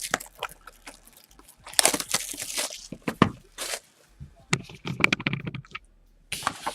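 Sealed box of football trading cards being torn open: a series of ripping, crunching and crinkling noises from wrapping and cardboard, the loudest rip about two seconds in.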